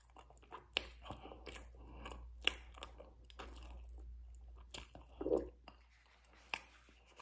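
Close-up chewing of a mouthful of white powder: soft, irregular crunches, several a second, with one louder crunch about two and a half seconds in.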